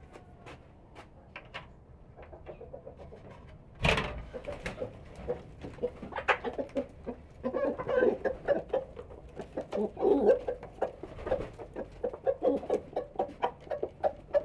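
Domestic hens clucking, with many short, repeated calls from about six seconds in. A single loud knock comes about four seconds in.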